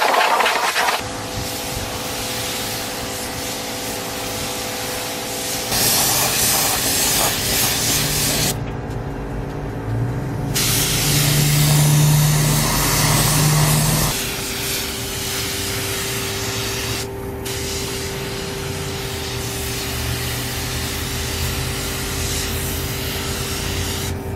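Paint spray gun hissing as primer is sprayed onto plastic headlight housings, over a steady hum that changes pitch at a few abrupt cuts. Near the start, a garden hose sprays water onto the housings.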